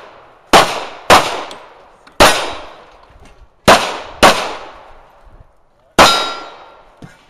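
Handgun shots fired during a practical pistol stage: six shots, in pairs and singles about half a second to a second and a half apart. The last shot is followed by a brief metallic ring.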